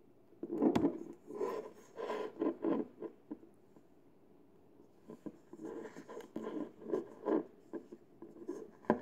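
Eggshell scraping and rubbing on a countertop as a raw egg is turned and set on end by hand. The noise comes in two spells of scratchy rubbing, with a sharp tap about a second in.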